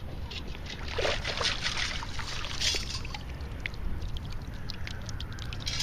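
Sand being dug and sifted to recover a metal-detector target three inches deep: a run of short scraping, gritty strokes, with sand trickling and pouring and a denser pour near the end. Wind rumbles on the microphone underneath.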